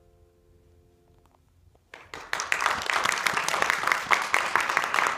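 The last piano chord fades away to a brief hush, then the audience breaks into steady applause about two seconds in.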